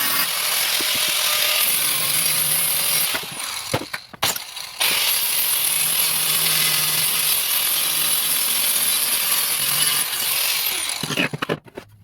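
Electric arc welding on a steel car bumper: a steady crackling hiss that stops briefly about four seconds in, restarts abruptly, and stops about eleven seconds in, followed by a few sharp clicks.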